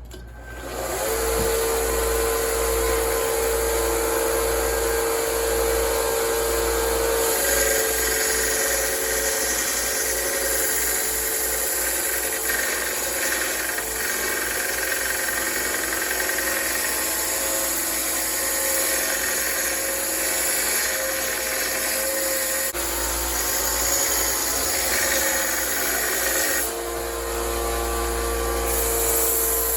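Belt sander running steadily while dressing the rails of a steel chainsaw bar, a continuous motor whine with grinding hiss whose tone shifts a few times as the work goes on.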